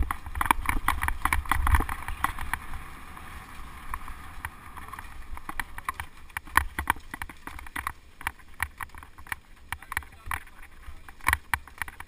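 Mountain bike rolling fast down a rough, leaf-covered dirt trail: irregular rattles and knocks from the bike and its mounted camera jolting over bumps, over a steady hiss of tyres on the ground. Heavy wind rumble in the first two seconds.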